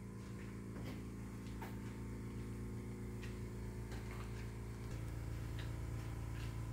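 Quiet room tone: a low steady hum with a few faint clicks.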